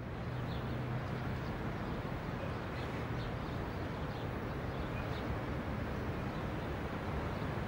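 Steady outdoor city ambience: a low, even hum of distant traffic, with faint short bird chirps now and then.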